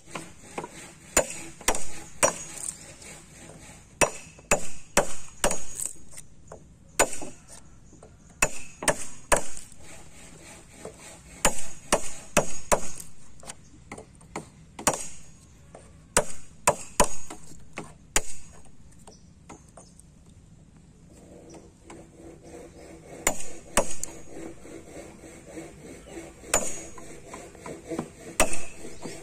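Hammer striking a wood chisel, chopping out a notch in a block of reddish hardwood for a timber joint: sharp knocks in short irregular runs, with a pause of a few seconds just past the middle.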